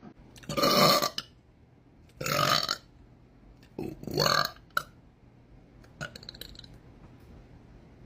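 A woman burping three times in quick succession, each burp under a second long and about a second and a half apart, with a few faint clicks after them.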